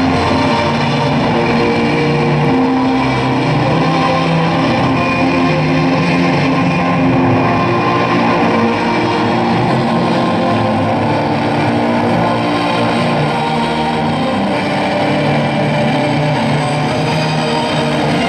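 Guitar-led music playing at a steady level.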